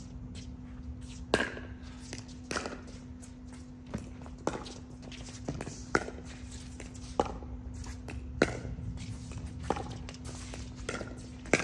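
A pickleball rally: about ten sharp plastic knocks of paddles hitting the ball back and forth, roughly once a second with some quicker pairs, over a steady low hum.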